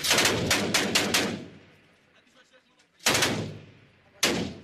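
Gunfire from AK-pattern assault rifles: a rapid string of seven or so shots with an echoing tail, then, after a pause, two single shots about a second apart.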